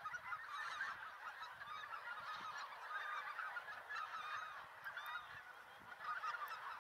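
A large flock of geese on the water calling together: many overlapping honks in a continuous chorus.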